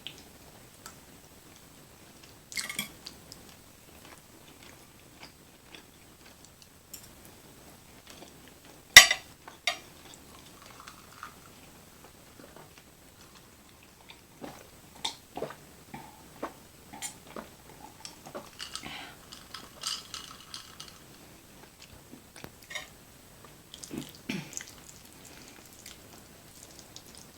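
Close-miked eating sounds: chewing and wet mouth noises from big bites of creamy chicken fettuccine alfredo, with cutlery clicking against a dish. One sharp click about a third of the way through is the loudest sound, and the chewing grows busier in the second half.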